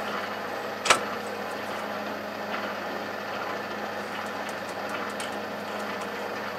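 Lathe running steadily at slow speed with an off-centre cast iron wheel turning, as a twist drill in the tailstock chuck starts a pilot hole; the speed is kept low because the wheel is out of true. A single sharp knock about a second in.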